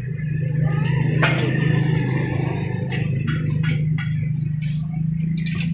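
Motorcycle engine running steadily at idle, with scattered light clicks and knocks of work on the bike over it.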